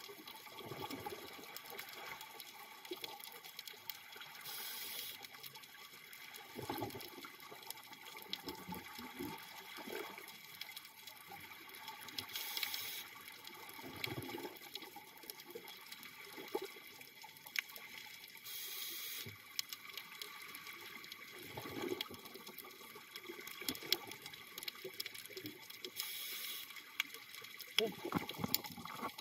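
Underwater scuba breathing: the regulator hisses on each inhalation every six to eight seconds, and exhaled air bubbles up with gurgles between breaths, over a steady crackle of small clicks.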